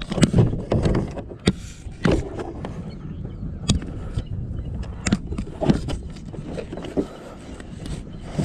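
Irregular knocks, clicks and a few heavier thumps on a car body, heard muffled from inside the car, as a kayak is lifted and worked onto the roof.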